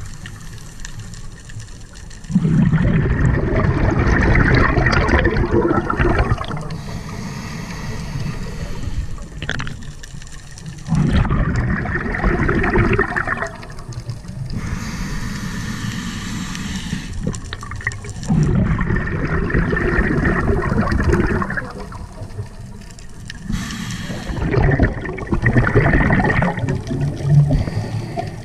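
Scuba diver breathing through a regulator underwater: four long spells of loud bubbling exhaust, roughly every seven to eight seconds, with a quieter hiss of inhalation between them.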